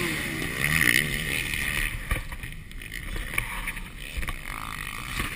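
Motocross bike engine revving up and down as the bike flies over a jump, dying away after about two seconds. Wind on the microphone and a few sharp knocks follow.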